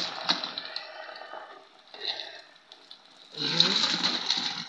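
A pan of bubbling orange sauce sizzling as pieces of battered fried chicken are dropped into it, with scattered clicks. It starts suddenly and grows louder about three and a half seconds in.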